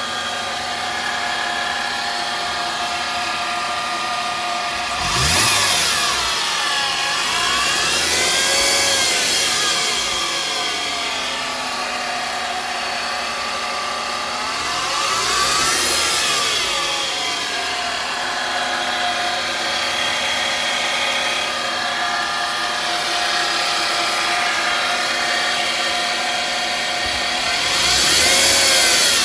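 2008 Mercedes-Benz C300's V6 engine idling with a steady high-pitched drone, revved up and back down three times, the drone rising and falling with engine speed. The drone comes from a failing alternator.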